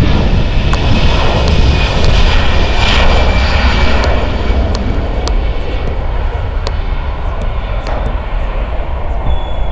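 Germanwings Airbus A320-family jetliner's twin jet engines at takeoff thrust during the takeoff roll: a loud, steady rush that swells to its loudest about three seconds in as the plane passes, then eases slightly.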